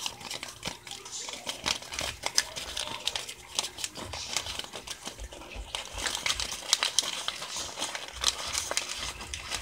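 Folded sheet of printer paper being handled and worked open close to the microphone: a paper fortune teller's corners being opened out. The paper makes irregular crinkling and crackling.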